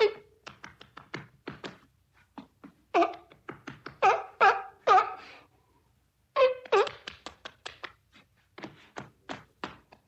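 Sea lion barking in a run of short, clipped calls. The loudest barks come in a cluster about three to five seconds in and again at about six and a half seconds, with fainter quick barks in between.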